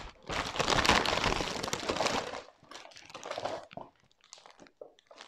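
Pink gift-wrapping paper being torn open and crumpled from around a panettone, a loud rustling for about two seconds. After that come quieter, scattered crinkles of the clear plastic bag around the cake.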